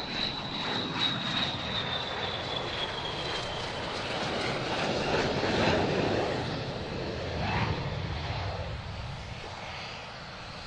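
Saab Gripen E fighter's single F414 jet engine as the aircraft flies low past: a high whine slides down in pitch over the first few seconds while the jet noise builds to its loudest about halfway through, then eases off.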